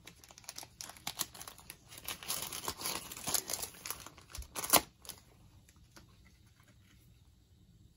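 Football trading cards being handled and shuffled by hand: papery rustling and cards sliding against each other for about five seconds, with one sharper snap near the end of the rustling, then quiet.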